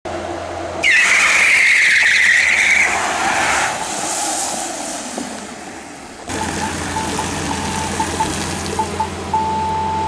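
Rimac Nevera's tyres squealing as they spin, starting about a second in and lasting about two seconds, then fading to a lower hum. After a sudden change, a steady hum with a broken, mid-pitched tone repeating near the end.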